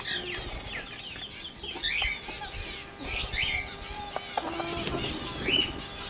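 Rose-ringed parakeets chirping: many short, quick calls, mostly falling in pitch, one after another, with a few faint clicks among them.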